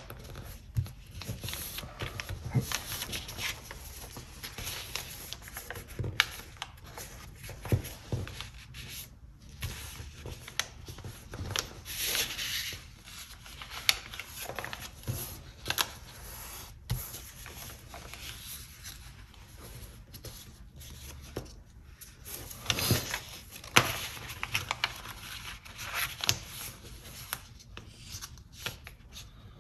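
A sheet of paper being folded and creased by hand: irregular rustling and crinkling, with sharp crisp snaps as fingers press and run along the folds.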